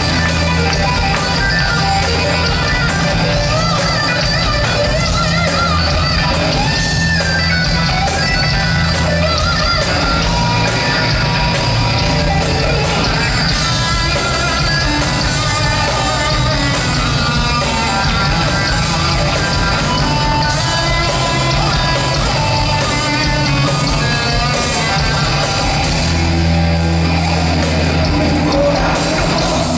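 Live hard rock band playing loud on stage: electric guitars through Marshall amp stacks, bass and drums, heard from within the crowd.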